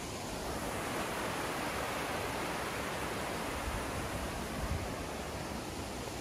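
Steady rushing of a mountain stream, with low wind buffets on the microphone.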